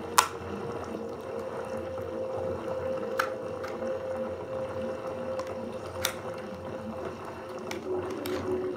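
Hands opening a small cardboard vape box and handling the device inside: a few sharp clicks, the loudest just at the start, over a steady hum.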